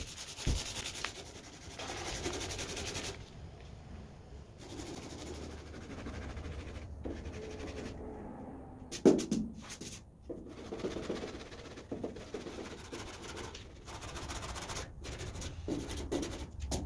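Sandpaper rubbed by hand over the primed steel of a Ford F-250 cab in uneven back-and-forth strokes, scuffing the primer and knocking down paint drips. A single sharp knock about nine seconds in.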